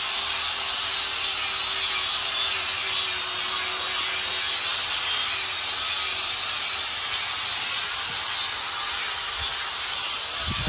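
Angle grinder running against steel: a steady grinding hiss with a thin motor whine that wavers slightly.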